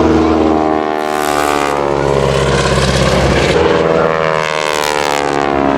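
Propeller engine of a Boeing Stearman biplane running during a display flypast, its pitch shifting as it passes.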